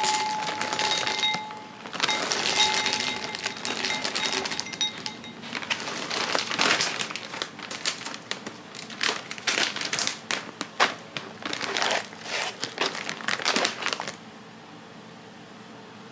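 Black sugar popcorn pouring from a crinkling plastic bag into a glass bowl: a dense run of rustles and small clicks that stops about fourteen seconds in.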